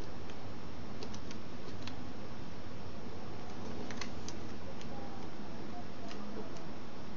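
Origami paper being handled and creased by hand on a wooden tabletop: scattered small clicks and crinkles, a few about a second in and a cluster around four seconds in as the sheet is turned over, over a steady hiss.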